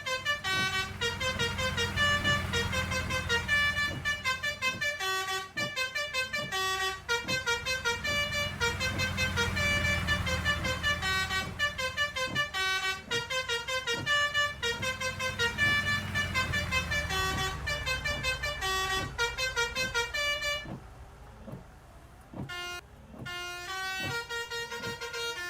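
A bus's basuri telolet horn playing a fast melody of short, shifting notes, over the bus's low engine rumble. The rumble fades out about two-thirds of the way in, and near the end the horn thins to scattered, quieter notes.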